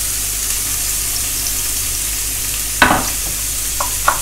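Chopped onions sizzling gently in olive oil in a frying pan, a steady hiss as they sweat down. A loud knock comes nearly three seconds in, then near the end a knife starts chopping on a wooden board.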